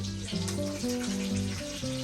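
Background music of sustained notes changing pitch every half second or so, over a steady hiss like running water or sizzling.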